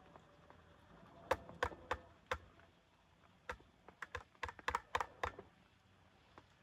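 A run of about fifteen light, irregular clicks and taps, like small hard objects being handled, over a faint steady hiss.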